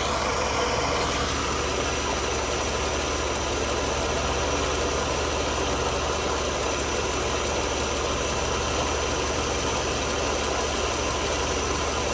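Mercedes W124 300E straight-six idling steadily while its fuel mixture is being adjusted toward a 50% duty cycle, after it had been running rich.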